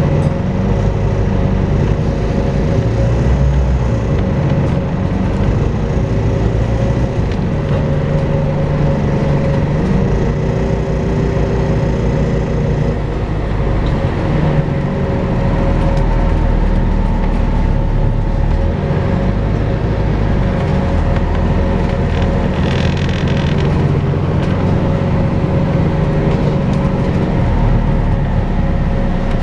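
Volvo B5LH diesel-electric hybrid double-decker bus running, with a steady vacuum-cleaner-like whine ("hoovering") held over its engine and road noise as the engine note rises and falls. A short hiss comes about 23 seconds in.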